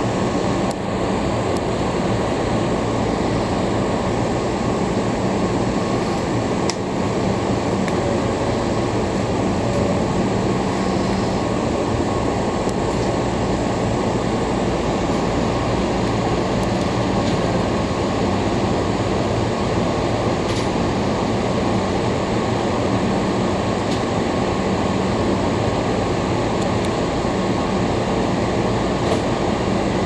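Steady hum and whir of a standing Hankyu 6000 series electric train's onboard equipment and air conditioning, heard inside the cab.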